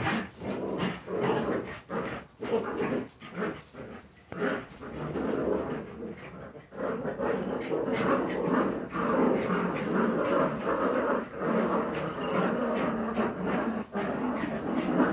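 Jagdterrier puppies making play noises while they wrestle and tug at a cloth together: short, broken sounds at first, turning fuller and more continuous from about seven seconds in.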